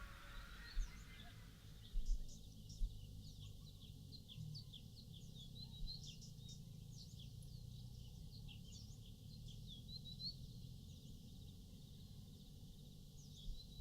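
Many birds chirping and calling, with short rising and falling notes overlapping throughout, over a low rumble. A few low thumps come in the first few seconds.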